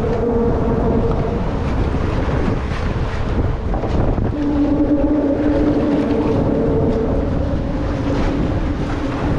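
Wind buffeting the microphone over choppy water lapping at a kayak. A steady hum sits under it briefly at the start and again from about four seconds in until near the end.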